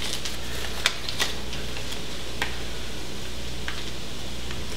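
Food frying in a pan on the stove: a steady sizzling hiss with a few scattered pops and crackles.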